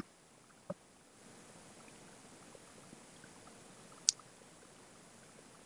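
Near silence with a faint steady hiss, broken by two short sharp clicks: a small one under a second in and a sharper one about four seconds in.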